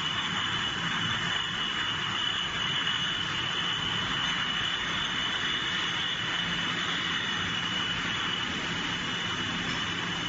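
Steady running noise of an automatic bottle depalletizer and its conveyor line: an even hiss with a high steady whine on top.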